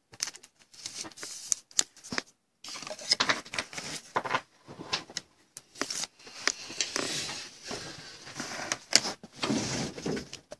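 Intermittent rustling and light clicks of trading cards, plastic card holders and a cardboard box being handled.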